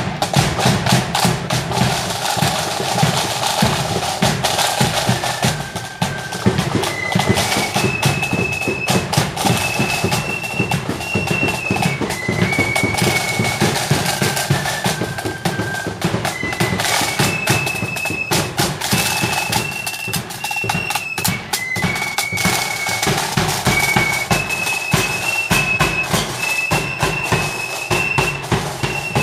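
Marching flute band playing: side drums beat a steady march throughout, and about five seconds in the flutes come in with a high melody whose phrase repeats.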